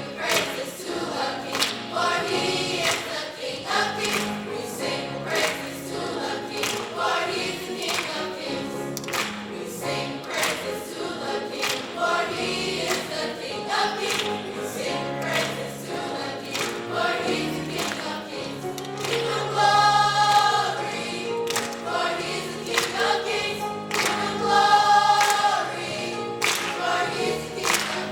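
Gospel choir singing with a steady percussive beat, swelling louder twice in the second half.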